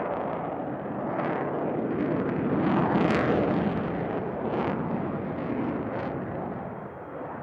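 Jet noise from an F-22 Raptor's twin Pratt & Whitney F119 turbofan engines as it flies a display overhead: a steady roar that swells to its loudest about three seconds in, then slowly fades, with a few short, sharper swells along the way.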